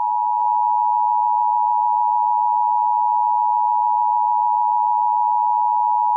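Emergency Alert System two-tone attention signal: two close-pitched steady tones sounding together, loud and unbroken. It is the attention signal that heralds an emergency broadcast message.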